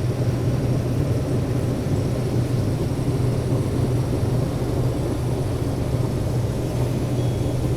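Case IH 2388 combine's diesel engine and threshing machinery running steadily under load while harvesting corn, heard from inside the closed cab: an even, unchanging low hum with engine speed held at about 2460 rpm.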